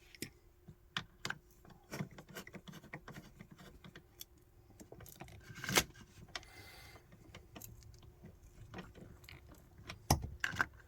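Irregular small metal clicks and clinks as the seatbelt anchor bolt and its fittings are handled and the bolt is put back in by hand, with a louder knock about six seconds in and again near the end.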